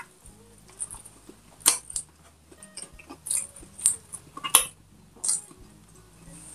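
Close-miked eating sounds: several short, sharp, wet clicks and smacks of chewing, spaced about a second apart.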